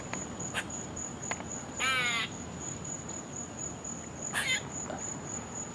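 Two short, harsh, raspy animal calls, about two seconds in and again near four and a half seconds, over a steady high, evenly pulsing insect trill.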